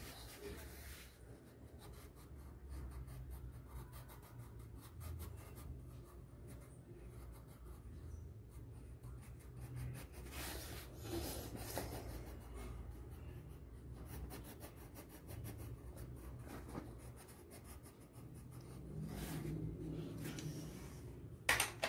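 Coloured pencil scratching on paper in quick repeated strokes as an area is coloured in, with a sharper click near the end.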